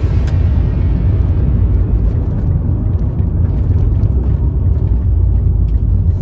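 Steady low rumble of a car on the move, heavy in the bass, with no distinct events.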